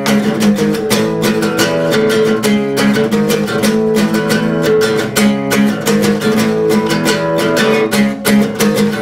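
Solo acoustic guitar, a cutaway steel-string, played with quick, even strummed and picked chords in an instrumental passage without singing.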